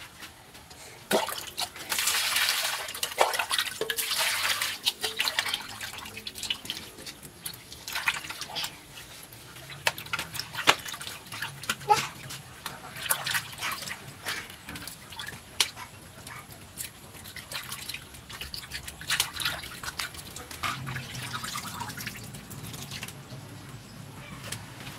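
Hands washing raw squid in a plastic basin of water: water sloshing, splashing and dripping in irregular bursts, busiest in the first few seconds.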